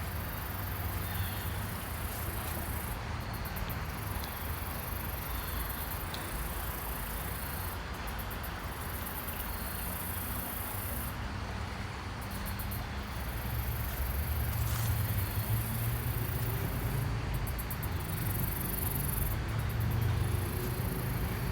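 Waterfall running full after rain, a steady rush of falling water, with insects trilling in high, pulsing bursts. A low rumble grows louder over the last several seconds.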